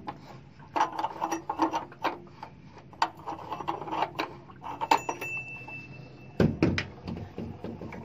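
Scattered clicks and clatters of hands working metal tools and fittings on an electric water heater, with a louder low thump about two-thirds of the way in.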